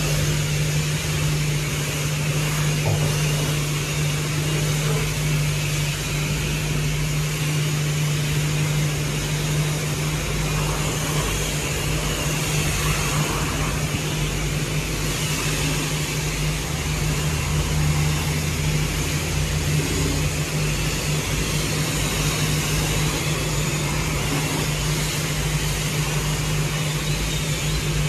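Steady motor hum with a constant hiss over it, unchanging throughout.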